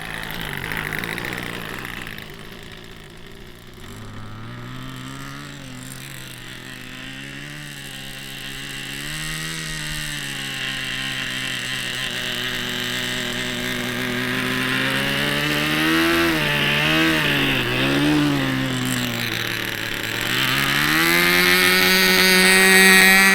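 SH GF6 .37 glow-ignition model airplane engine running, its pitch wavering up and down with throttle and passes, then climbing sharply near the end and holding high.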